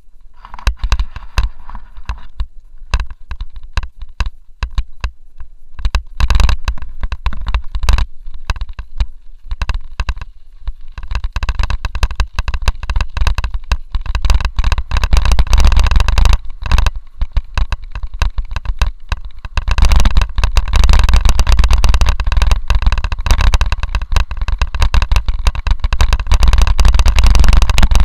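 Mountain bike riding down a gravel track, heard from a camera mounted on the bike: tyres crunching and the bike rattling over stones in a dense stream of clicks, with wind buffeting the microphone in a heavy low rumble. It grows louder about a third of the way in and again past the middle.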